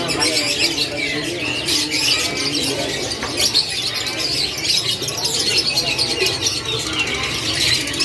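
Several canaries singing at once, a dense, continuous twittering warble.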